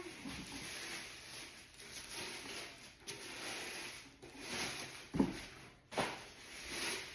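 Packaging rustling while new cookware is unwrapped and handled, with two sharp knocks about five and six seconds in.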